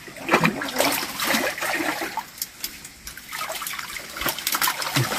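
Hands sloshing and splashing in shallow muddy water, groping through the mud for fish, with irregular small splashes and trickling.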